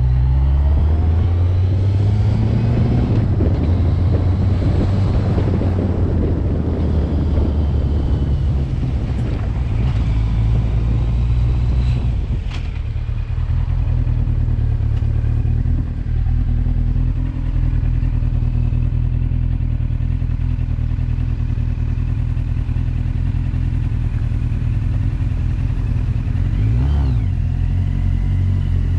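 Motor vehicle engine running under way, its pitch rising and falling over the first several seconds and then running steadier, with road and wind noise.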